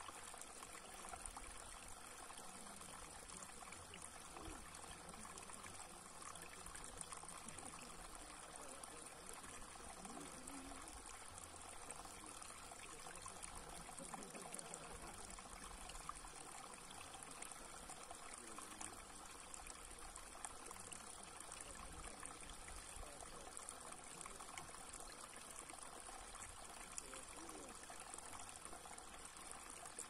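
Shallow water trickling steadily over a flat rock channel and spilling into a small pool; faint and even.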